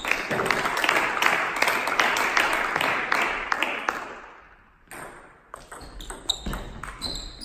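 Loud noise in the hall for the first few seconds, fading away. Then a table tennis ball is served and rallied, clicking sharply off the bats and the table about every half second.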